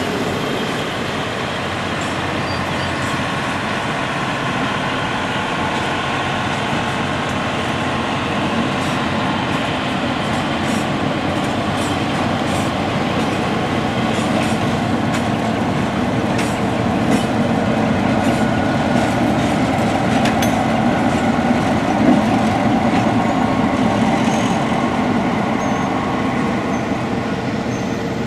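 Slow-moving train rolling past with an EMD GP-series diesel road-switcher locomotive, its diesel engine running steadily and its wheels clicking over the rail joints. The engine noise swells as the locomotive passes, loudest about three quarters of the way through.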